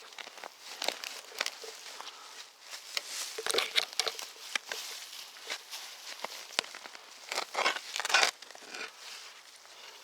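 Crunching and rustling of dry leaf litter and twigs in irregular bursts, loudest about three and a half seconds in and again around eight seconds.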